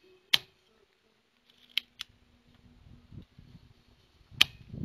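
Spring-loaded desoldering pump (solder sucker) clicking as its plunger is cocked and snapped back to suck molten solder off a circuit-board joint. There are four sharp clicks: the loudest about a third of a second in and another near the end, with two closer together around the two-second mark and light handling rustle between them.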